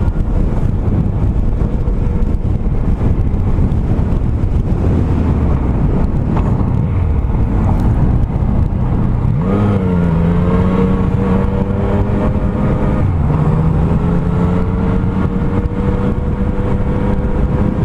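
Motorcycle engine running under wind noise on a rider's microphone. About halfway through, the engine note rises as the bike accelerates and then holds steady. It drops out briefly a few seconds later and comes back, climbing slowly.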